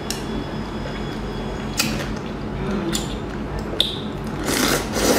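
Close-miked eating of saucy seafood: a few sharp clicks of chopsticks against the plate, then slurping and sucking as she takes a bite near the end.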